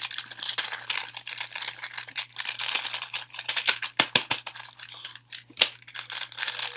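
A small white packet from a COVID home-test kit being handled and crinkled, with irregular crackling and small clicks.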